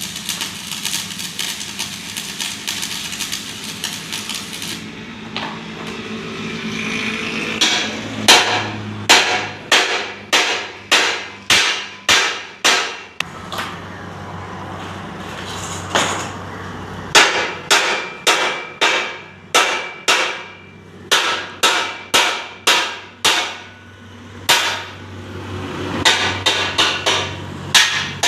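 Hammer blows on metal while a bumper is being formed, in runs of sharp ringing strikes about two a second with short pauses between the runs. The first few seconds are a dense, busy clatter before the strikes begin.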